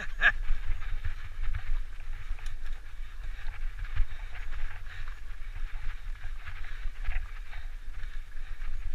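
Mountain bike ridden fast down a dirt singletrack: steady wind rumble on the camera's microphone over the rattle and crunch of the tyres on packed dirt and dry leaves.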